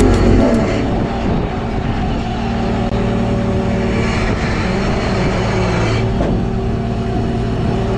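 Fishing boat's engine running steadily at sea.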